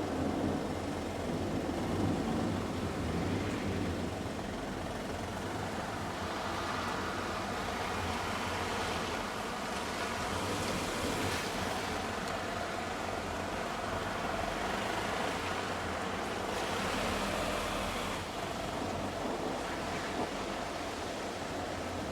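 Vehicles passing on a wet road in a light thunderstorm: a steady hiss of tyres and rain, swelling louder as cars go by near the middle and again a few seconds later.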